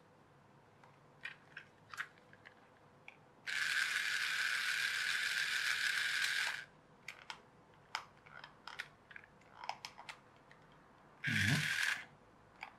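Small electric motor and plastic gearbox of a TOMY wire-controlled toy plane running with a steady whirr for about three seconds. Scattered light clicks follow, then the motor runs again briefly near the end.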